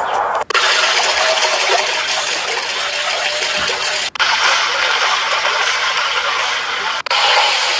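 A steady hiss, cut off for an instant three times.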